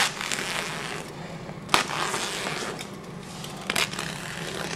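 Utility knife cutting open a woven polypropylene bag: scratchy slicing strokes through the fabric, broken by three sharp clicks about two seconds apart.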